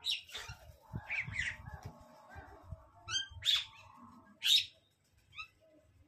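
Parakeets screeching: a string of short, harsh squawks, loudest about three and a half and four and a half seconds in, with quick little falling chirps between.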